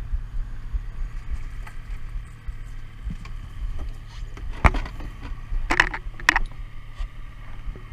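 Boat motor running with a steady low hum, and a few sharp knocks and rattles from the landing net and the freshly landed king salmon in it on the boat deck: one a little past halfway, then a quick cluster about a second later.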